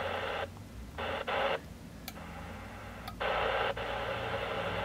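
Receiver static hissing from a Yaesu FT-857 transceiver's speaker, cutting out and back in a few times as the radio is stepped through frequencies, with a few sharp clicks from its front-panel buttons.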